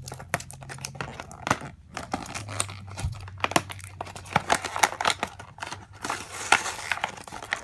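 Toy package being torn open by hand, crinkling and tearing with many small clicks.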